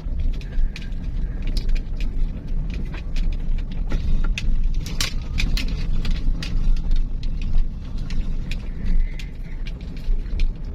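Motor vehicle traffic on a road: a continuous low engine and road rumble, with frequent sharp clicks and knocks throughout.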